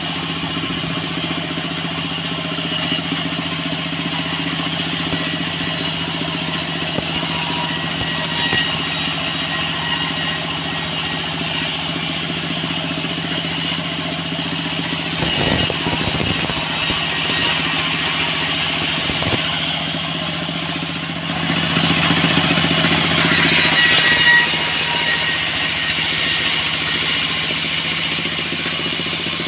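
Engine-driven portable sawmill running steadily while boards of dried salam (Indonesian bay leaf) wood are fed across its saw table. The sound grows louder for a few seconds about three-quarters of the way through.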